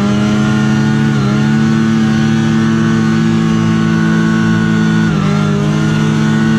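Yamaha VK 540 snowmobile's two-stroke engine running at steady high revs under way. It dips briefly in pitch twice, about a second in and about five seconds in, then comes back up.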